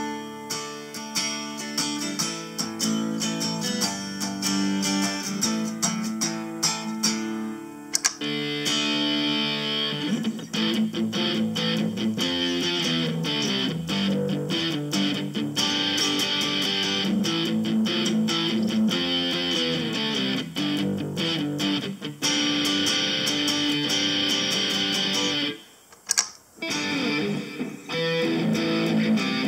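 Electric guitar played through a Harley Benton DNAfx GiT multi-effects processor, demonstrating its preset sounds. The tone changes abruptly about eight seconds in, and the sound drops out briefly near the end before playing resumes.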